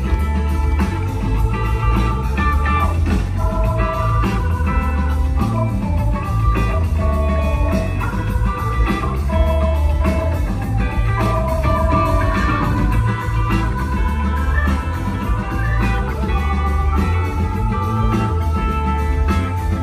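Live rock band playing an instrumental jam: electric guitars playing sustained melody lines over bass and drums, with no singing.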